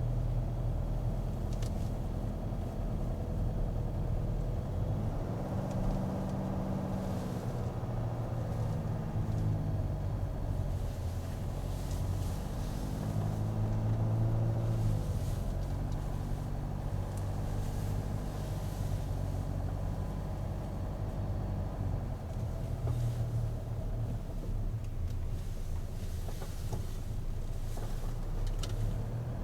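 A car driving, its engine running steadily with the pitch rising and falling several times as it speeds up and eases off.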